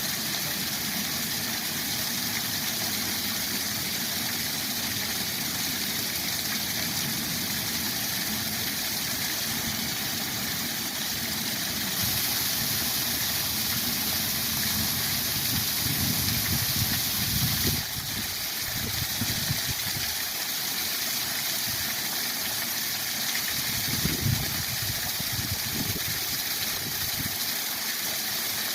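Steady rushing of a spring waterfall, a constant hiss of falling water, with uneven low rumbles coming and going in the second half.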